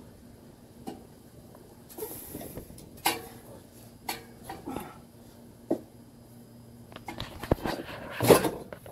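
Scattered knocks and clanks of a car's metal exhaust pipe being worked loose from underneath, the loudest clatter near the end as a section comes free.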